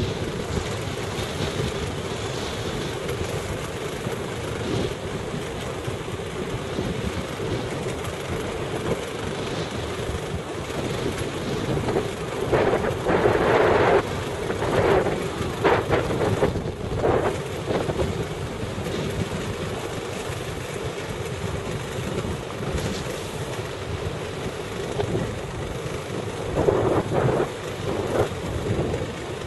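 Wind rushing on the microphone and sea noise aboard a small fishing boat, with its engine running steadily underneath. Louder rushes come about twelve seconds in and again near the end.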